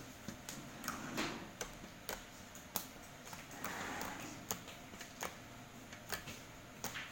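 Fluffy slime being worked by hand, giving irregular sharp little clicks and pops, with a couple of softer squishy swells between them.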